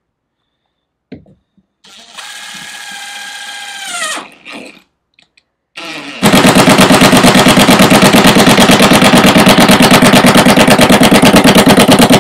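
DeWalt XR brushless cordless impact driver on its lowest speed setting. It whirs briefly and winds down, then hammers rapidly and evenly for about seven seconds while driving a Torx screw into hardwood. It nearly stalls, lacking the torque in speed one to drive the screw.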